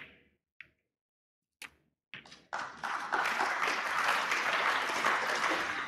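A few sharp knocks of snooker balls as the black is potted, then audience applause that swells up about two seconds in and carries on steadily.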